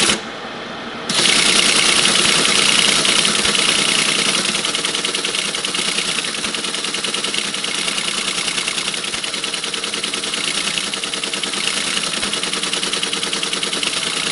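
1964 Teletype ASR 33 printing at full speed: a dense, rapid, continuous clatter of the typing mechanism that starts about a second in, over the steady hum of its running motor.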